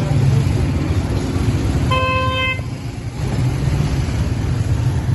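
Steady road-traffic rumble with a single short car horn toot about two seconds in.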